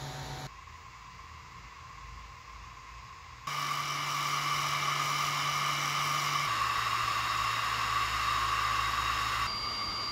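3D printer part-cooling blower fans (4010, 4020 and 5020 radial fans) running at full power, one after another: a steady rush of air with a hum and a whine. The sound changes abruptly several times as one fan gives way to the next, quieter for the first few seconds and louder from about three and a half seconds in.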